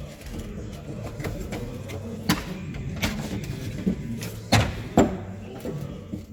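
Plastic interior trim clips snapping loose one after another, four sharp pops, as a tight trim panel is prised off with a trim tool.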